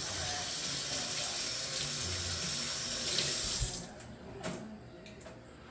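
Kitchen sink tap running steadily as hands are rinsed under it, then turned off about four seconds in.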